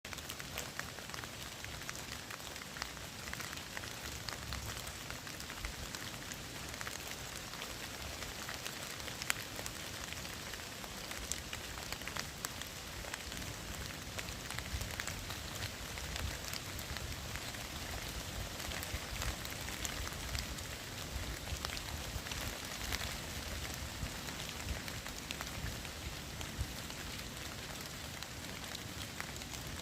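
Steady rain falling, an even hiss with many separate drops ticking and pattering on surfaces.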